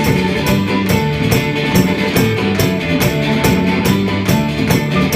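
Irish folk band playing an instrumental passage between sung verses: a held melody line over strummed strings and steady percussion at a brisk beat.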